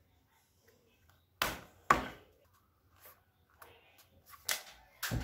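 Plastic armrest pad being pressed and snapped onto an office chair's plastic armrest frame: two sharp clicks about a second and a half and two seconds in, the second the loudest, then several lighter knocks of plastic on plastic.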